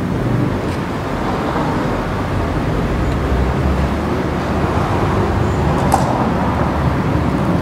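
Steady outdoor background noise with a low rumble, like road traffic, and one small click just before the end.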